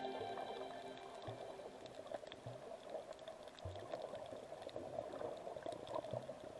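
Faint bubbling and crackling water, as heard underwater, with scattered clicks and a few soft low thumps.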